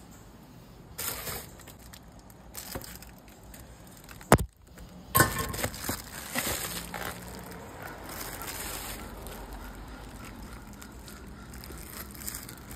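A plastic padded mailer crinkling and rustling as it is handled and pulled out of a metal parcel locker, with a sharp knock a little over four seconds in.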